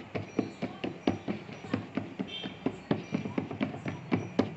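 Fingers patting and pressing a ball of sorghum roti dough flat on a steel plate: quick soft pats at about four or five a second.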